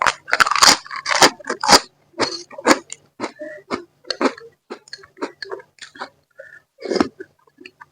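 Close-miked mouth sounds of a person chewing baso aci, chewy tapioca meatballs: irregular wet smacks and clicks, with a few louder bursts near the start and near the end.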